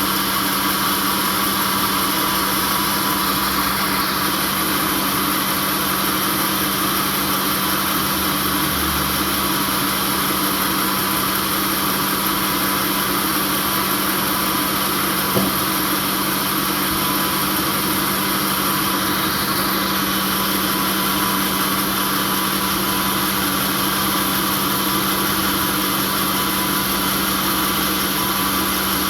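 A sawmill's engine running at a steady speed, an unchanging mechanical drone, with one brief click about halfway through.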